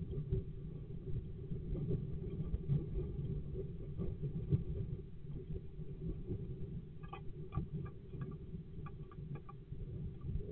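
Great tit moving about on the floor of a wooden nest box: light scratching and tapping of its feet and bill on the wood, with a quick run of sharp taps about seven seconds in, over a steady low rumble.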